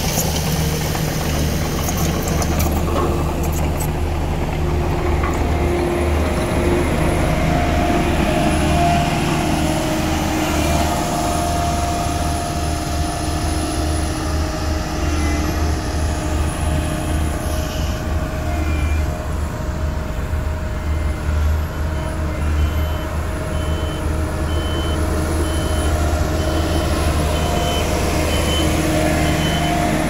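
Bomag BW211D-40 single-drum road roller's diesel engine running steadily while it compacts loose soil, with a deep, even low rumble. An evenly repeating high beep joins in about halfway through.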